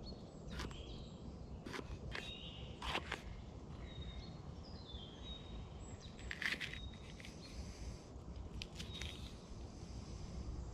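Knife cutting a red vegetable on a wooden tree-stump chopping block: irregular sharp knocks of the blade striking the wood. Small birds chirp in the background.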